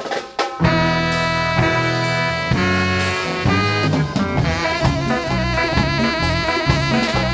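A live band playing the instrumental intro of a swing-style song, with horns and a drum kit. The full band comes in about half a second in.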